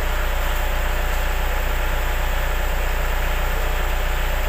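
Twin-cylinder 12-volt portable air compressor running, its pistons pumping air into a car tyre: a loud, steady hum with a fast, even pulse.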